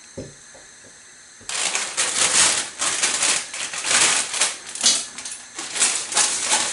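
Olive oil crackling and spitting in a hot frying pan, starting suddenly about a second and a half in as a dense, irregular crackle, with a soft knock just before.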